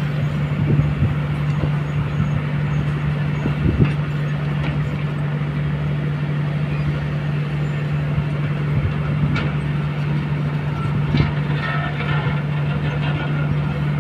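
Diesel engines of Kobelco crawler excavators running steadily with a constant low drone while the bucket digs into gravel and soil, with a few short knocks of rock.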